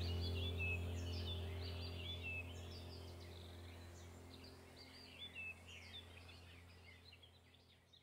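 Background music fading out: a low held drone note dies away under bird chirps, and the whole mix grows steadily quieter.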